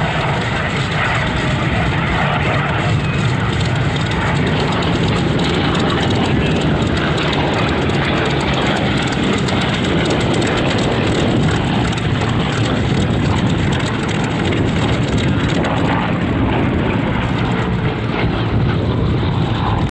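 Grumman F7F Tigercat's twin Pratt & Whitney R-2800 radial engines running steadily at low power as the aircraft taxis, a constant drone with no change in pitch.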